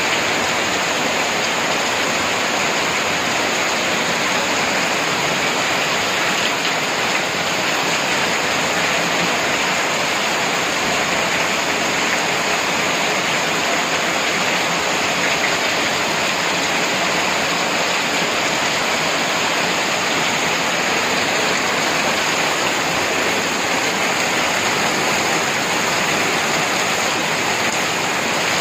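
Heavy rain pouring steadily, a dense even hiss of rain falling on trees and rooftops.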